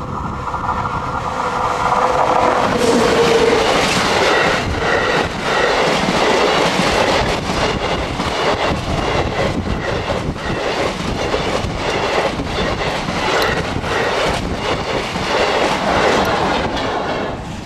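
A freight train hauled by an SNCF BB 26000 electric locomotive passes close by. The locomotive's steady hum drops in pitch as it goes past about three seconds in. After it, the flat wagons roll by loudly with a regular clatter of wheels.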